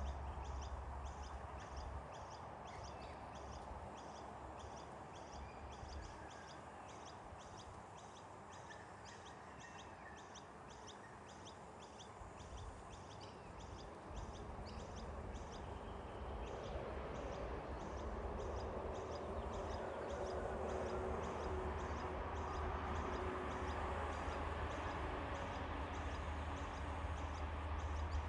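Outdoor ambience: a high, steady rhythmic chirping at about three chirps a second, over low wind rumble on the microphone that grows louder in the second half.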